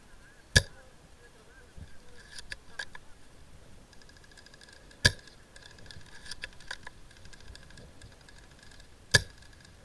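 Three sharp, loud cracks close to the microphone, about four seconds apart, with a few lighter clicks between them, over a faint steady pulsing chirr.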